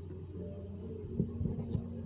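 Pen writing on paper: a few short soft strokes and taps between about one and two seconds in, over a steady low hum.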